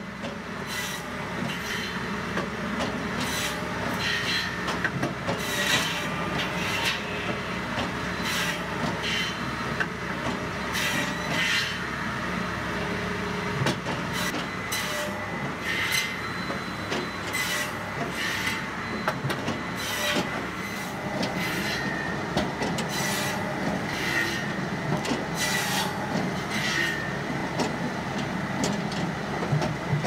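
POSCH SmartCut automatic firewood saw at work, its carbide-tipped circular blade cutting logs into billets in a short, sharp rasping burst every second or two over the machine's steady low drone.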